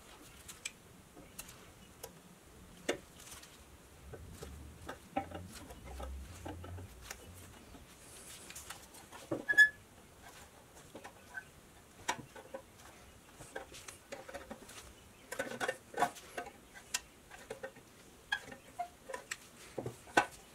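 Scattered light clicks and taps of small metal toy-truck parts being handled and set down on a workbench, at irregular times, with one sharper click about halfway through.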